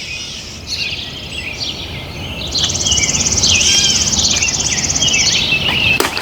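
Outdoor ambience of birds chirping, with an insect's steady rapid buzz joining about two and a half seconds in and stopping about a second before the end. A single sharp click sounds near the end.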